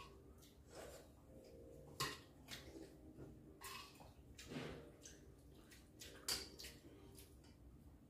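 Faint, scattered eating sounds: rice noodle soup slurped from bowls, with light taps of chopsticks and spoons on the bowls, about half a dozen separate sounds.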